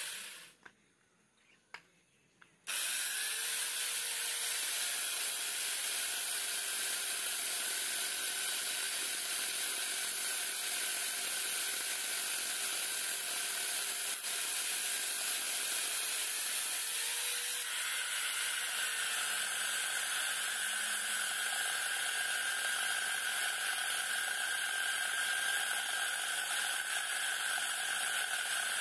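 Angle grinder converted into an electric chainsaw with a bar-and-chain attachment, cutting wooden logs. It stops briefly just after the start, starts up again about three seconds in and then runs steadily with a whine and hiss. Its tone sags a little under the load of the cut and comes back up, and the sound changes a little after halfway.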